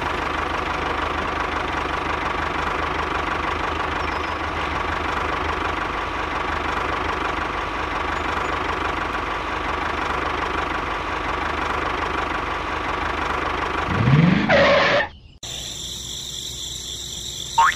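Small motor of a home-made miniature tractor running steadily with a thin, steady whine, cutting off suddenly after about fifteen seconds.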